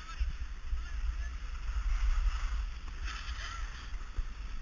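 Wind buffeting an action camera's microphone as a low rumble, over the hiss of skis sliding on snow, which swells briefly past the middle.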